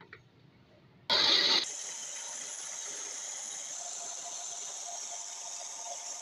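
Electric hand blender with a chopper bowl switched on about a second in with a short loud burst, then running at a steady whir as it chops coriander, mint and green chillies.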